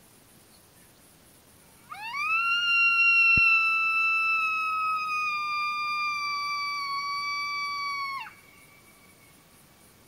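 Coyote howl: one long call that rises quickly, holds for about six seconds while sinking slightly in pitch, then drops away sharply.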